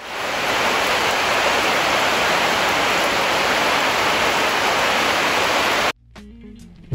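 Steady rain, an even hiss that cuts off suddenly about six seconds in.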